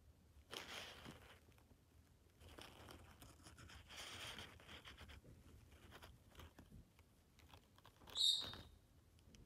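Faint rustling as a days-old lovebird chick is handled in the palm, with one short, high squeak about eight seconds in that is the loudest sound.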